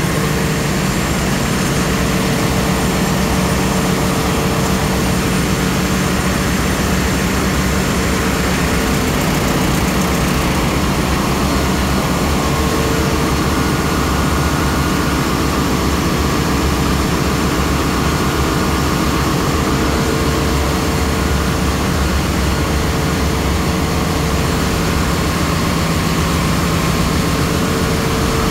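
Engine room of a bulk carrier at work: running diesel machinery, generator sets and the main engine, making a loud, constant drone with a faint steady whine held through it.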